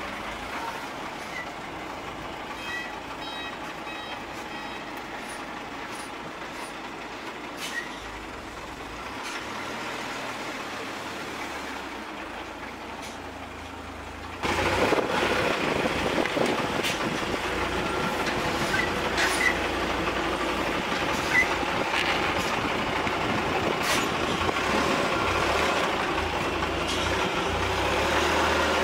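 Truck running, with a steady engine and road rumble and no clear rhythm. The sound jumps suddenly louder about halfway through and stays there.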